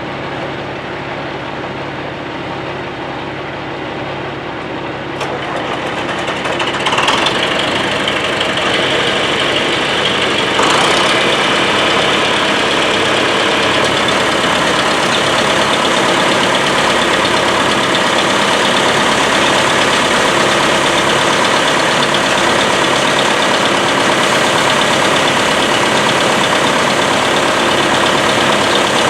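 A heavy engine running steadily, getting louder in two steps, about seven seconds in and again about ten seconds in, then holding there.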